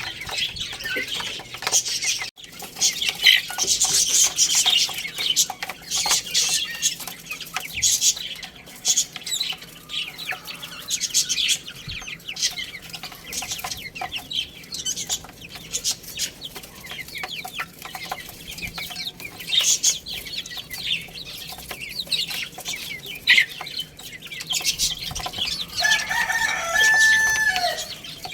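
Chicks peeping busily over chickens clucking, with many quick high-pitched chirps; near the end a rooster crows once in a long held call.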